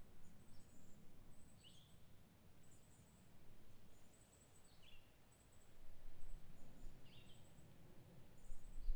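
Faint outdoor birdsong: a run of thin, very high repeated twitters, with a short falling chirp every couple of seconds, over a low rumble.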